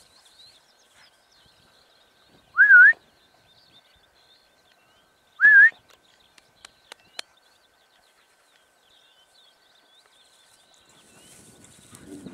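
Two short, loud, rising whistles a few seconds apart, a person whistling to call the deerhound. Near the end come the deerhound's footfalls through the grass as it runs up close, growing louder.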